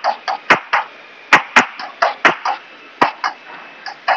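Light hammer blows on an annealed copper feather laid over a grooved block, about three short sharp taps a second, creasing a seam down the middle of the copper.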